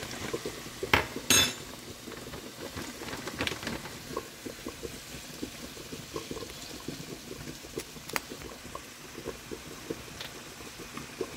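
Vegetables sizzling in oil in a skillet, a steady crackle while they are stirred with a spatula. Two sharp knocks about a second in.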